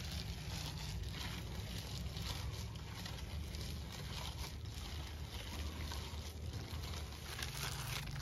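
Seasoned ground beef being mixed, giving soft irregular squelching and patting, over a steady low rumble.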